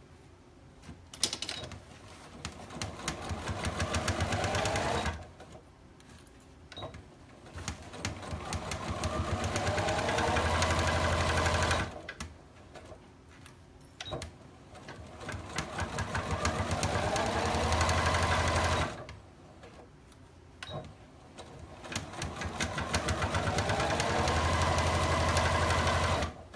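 Electric sewing machine stitching in four runs. Each run speeds up to a fast, steady whir and then stops abruptly, with pauses of about two seconds between them and small clicks in the gaps.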